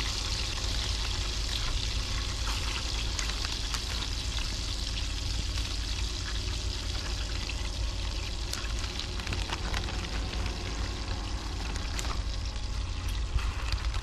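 Battered morel mushrooms sizzling in hot margarine in a cast iron skillet: a steady frying hiss with scattered small crackles as more pieces are laid in, over a low rumble.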